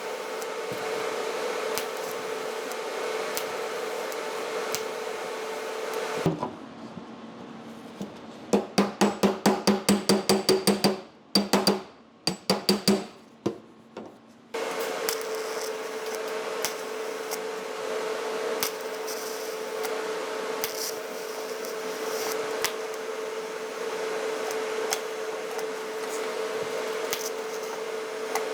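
TIG welding arc buzzing steadily with a constant whine as holes in sheet steel are filled with ER70S-2 filler rod. About six seconds in the steady buzz stops and gives way to a fast even run of short sharp pulses, about six a second, then a few separate ones, before the steady buzz returns.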